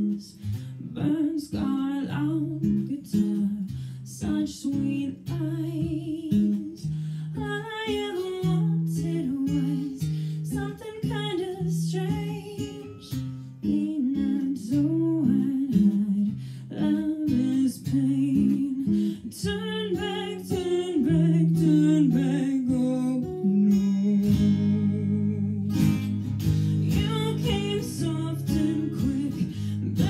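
An acoustic guitar is played in waltz time while a woman sings into a microphone.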